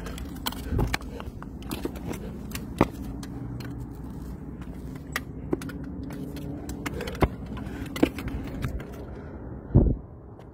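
Gloved hands and boots scraping and knocking on limestone during a steep rock scramble, with small stones clicking and clattering, and a heavy thump near the end.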